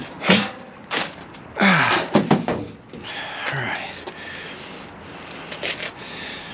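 Junk being handled and shifted while scrap metal is sorted: a few knocks and a rattling clatter about two seconds in, with rustling between. Behind it a cricket chirps steadily at a high pitch.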